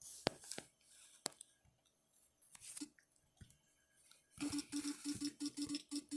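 Taps on a phone's touchscreen keyboard: a few scattered clicks, then a quick even run of key taps about five a second starting a little over four seconds in, each with a short buzz.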